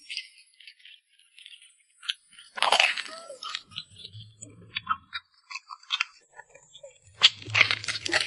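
Close-miked chewing and crunching of a fried glutinous-rice cake (zhagao) with a crisp crust, irregular crackles loudest a few seconds in and again near the end with a fresh bite.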